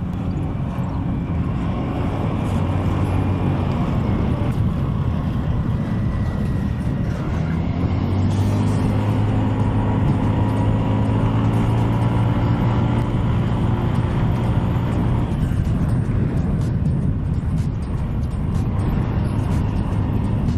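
Motorstar ER150N 150 cc scooter engine running at road speed, with steady wind and road noise. The engine note steps up a little about eight seconds in as the scooter accelerates.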